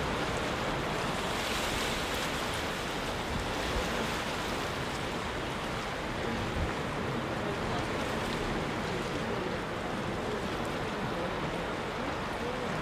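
Sea surf breaking and washing over rocks, a steady rushing noise.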